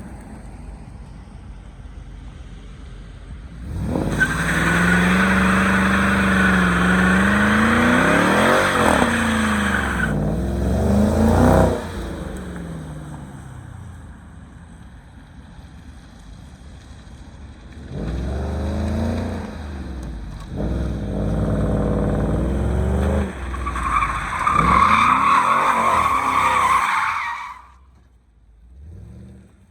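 Car doing a burnout: the engine revs hard, rising and falling, while the tires squeal, in two long bursts, one starting about four seconds in and another about eighteen seconds in. The squeal cuts off near the end.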